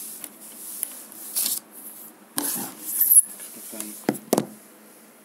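Handling noise of a phone being moved about: short bursts of rustling and scraping, the loudest about two and a half to three seconds in, then two sharp knocks close together near the end.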